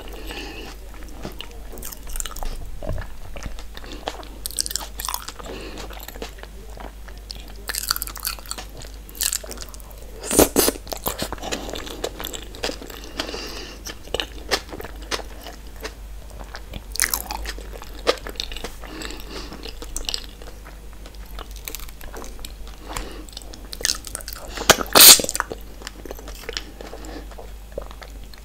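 Close-miked chewing and biting of seafood-boil food, a run of small crunches and clicks, with a few louder crunches about ten seconds in and again near twenty-five seconds.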